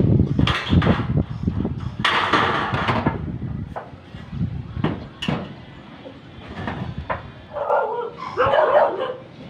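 Hand metal snips cutting galvanized steel stud channel, with crunching clicks and the thin steel rattling as it is handled. A dog barks a couple of times near the end.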